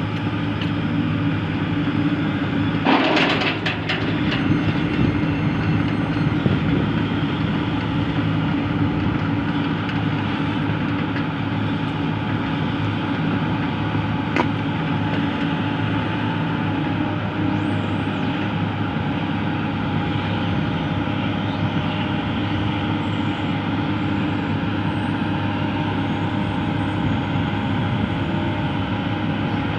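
Tracked excavator's diesel engine running steadily as the machine travels, with a short loud clank about three seconds in.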